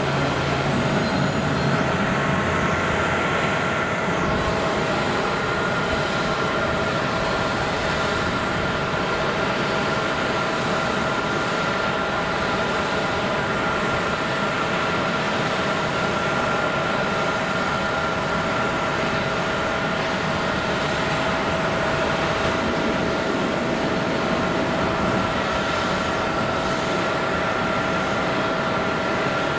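Jet engines of a twin-engine Airbus A330 airliner running, heard as a steady rush of noise with a constant high whine over it, as the plane lines up and begins its takeoff roll on a wet runway.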